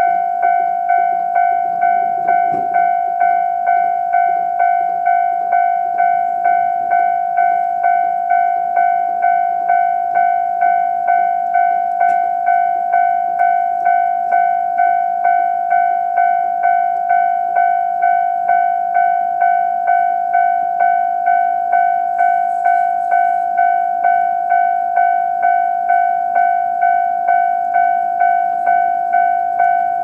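Japanese railway level-crossing warning bell ringing, a steady chiming tone struck over and over at about two strikes a second, sounding while the barriers are down for an approaching train.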